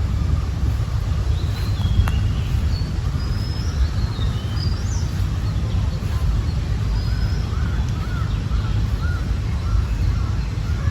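Several birds calling: scattered short, high whistles and, from about seven seconds in, a quick run of short repeated calls, all over a steady low rumble.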